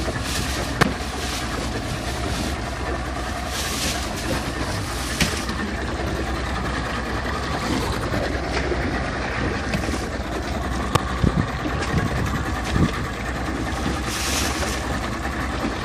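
Boat motor running steadily with a low hum, with a few knocks and short rustles of a plastic bag as lobsters are packed into a plastic cooler.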